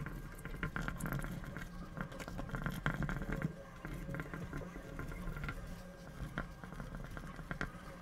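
Dry-erase marker writing on a whiteboard: quick, irregular taps and light scratches of the felt tip, busiest in the first half.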